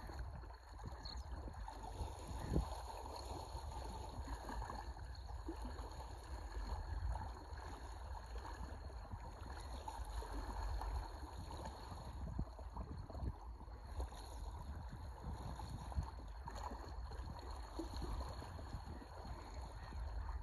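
Wind rumbling on the microphone over the wash and lapping of small waves on open sea, with two brief knocks, one about two and a half seconds in and one near sixteen seconds.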